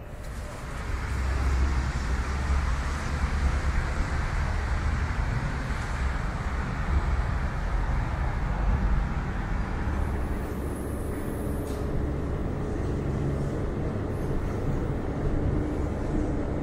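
Steady low rumble of vehicle noise, swelling slightly about a second in and then holding.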